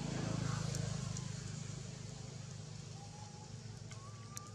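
A low, steady engine-like hum, loudest in the first second and slowly fading. Two short, thin whistle-like calls come near the end.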